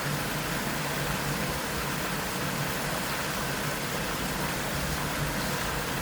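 Steady rush of water from a small waterfall, with a low hum of traffic underneath.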